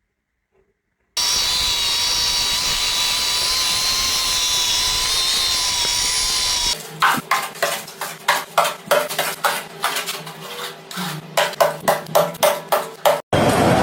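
A power tool running steadily with a high whine for about five seconds, then a run of rhythmic strokes, about two a second, quickening near the end.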